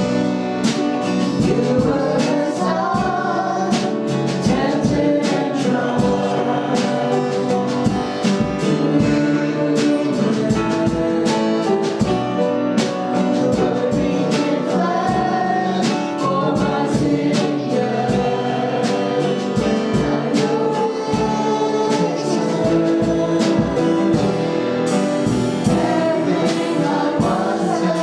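Gospel-style worship music sung by a group of singers over a full band with drums.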